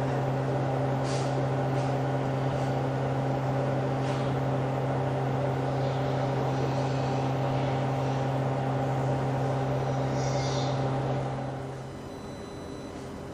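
Steady mechanical hum with a strong low drone and higher overtones, which drops away near the end. A few faint, short high squeaks sound over it.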